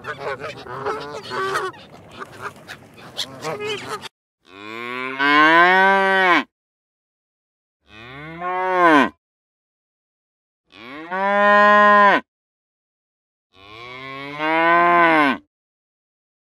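A flock of geese honking over one another for about the first four seconds, then cattle mooing: four separate long moos, each rising and then falling in pitch, with clean gaps of silence between them.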